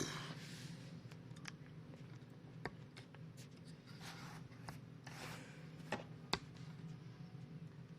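Things being handled on a desk: brief rustling and a few light clicks and knocks, the sharpest a little after six seconds in.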